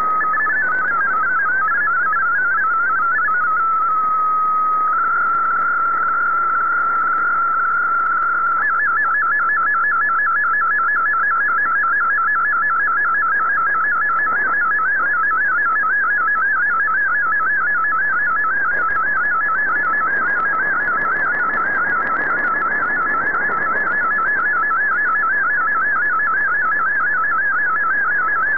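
MFSK32 digital-mode data signal received on a shortwave radio, over steady background hiss. For about four seconds it gives quick hopping text tones, then holds one tone for about four seconds. From about eight and a half seconds it changes to a fast, regular warble: an MFSK picture transmission sending a small colour image.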